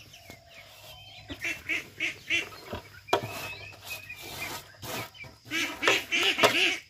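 A flock of young domestic ducks quacking, many short calls overlapping and loudest near the end, with a sharp knock about three seconds in.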